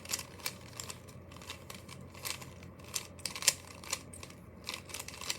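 Rubik's cube being twisted by hand: a run of quick, irregular plastic clicks as the layers are turned, one sharper click about three and a half seconds in.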